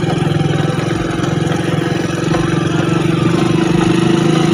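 Motorcycle engine running steadily at cruising speed with an even hum.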